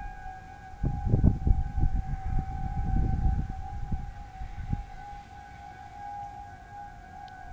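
Distant Federal Signal 2001 single-tone rotational tornado warning sirens holding one steady tone. About a second in, a louder, irregular low rumble comes over them for several seconds, then dies away.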